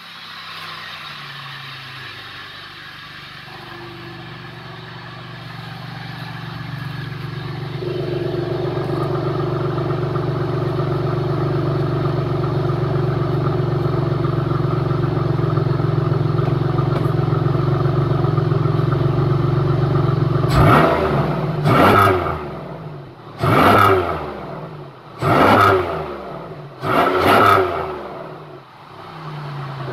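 2002 Pontiac Grand Prix GT's 3800 Series II V6 with a short ram intake, heard at the exhaust tip. The engine runs steadily, its speed stepping up and holding for several seconds. It is then revved sharply five times, each rev rising and falling, and settles back near the end.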